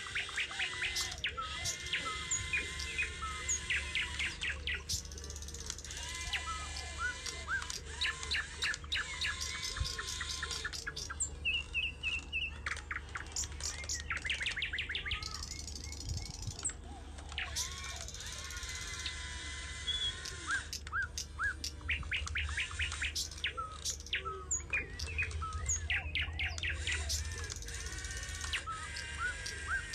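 Several birds chirping and trilling, with many quick calls overlapping throughout, over a low steady rumble.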